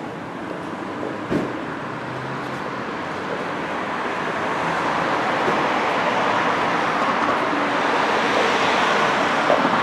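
Road traffic: a vehicle's tyre and engine noise swells over the last several seconds as it draws near, loudest near the end. A single knock about a second in.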